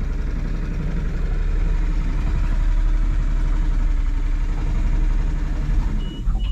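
Boat engine running steadily with a low drone. It drops away abruptly near the end.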